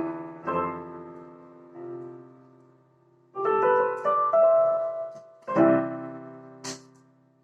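Piano chords struck one after another and left to ring, with a pause of near silence about three seconds in. The last chord fades away near the end, and a short sharp click sounds just before it dies out.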